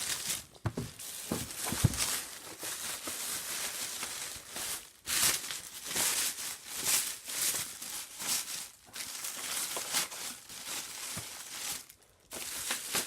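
Plastic and packing materials crinkling and rustling in irregular bursts as packaging is handled during an unboxing, with a sharp knock about two seconds in and short pauses.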